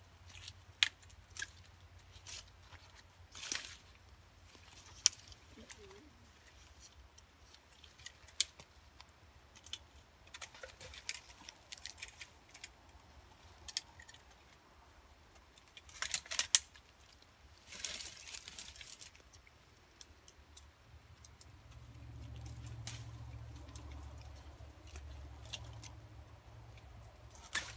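Hand pruning shears snipping through thorny stems in scattered sharp clicks, with short stretches of brush rustling. A low steady drone comes in about three quarters of the way through.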